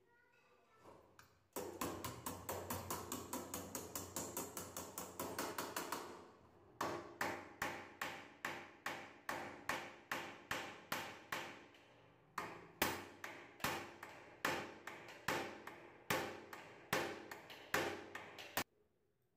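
Percussive background music: ringing struck beats, first a fast run of about five a second for a few seconds, then after a short break a steady beat of about two a second, each strike ringing on. It stops suddenly near the end.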